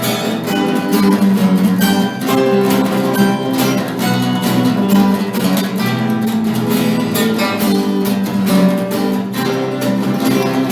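Instrumental break in a rock song: strummed guitar playing a steady rhythm, with no singing.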